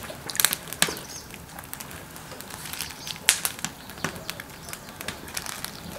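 Wood fire burning in a drum stove, crackling with a few sharp pops and snaps from the burning sticks.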